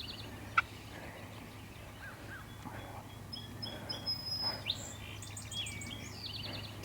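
Songbirds singing in the woods: repeated high chirps and several quick falling trills, busiest in the second half. A single sharp click sounds about half a second in.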